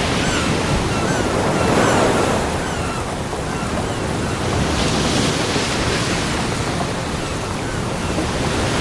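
Ocean waves breaking and washing up a beach, the surf swelling and easing every few seconds. Short chirping calls are faintly heard in the first half.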